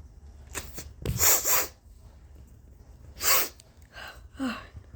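A woman sneezing hard from an allergy-irritated nose: a loud sneeze about a second in and another about three seconds in, followed near the end by short breathy sounds ending in a brief falling voiced note.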